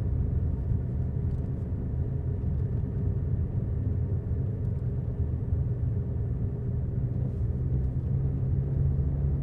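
A car's engine and road noise heard from inside the cabin while driving: a steady low rumble with an even hum.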